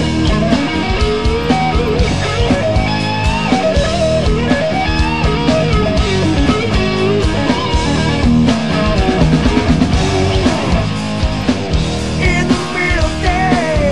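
Rock band playing an instrumental passage: a melodic guitar lead over bass and drums with a steady beat.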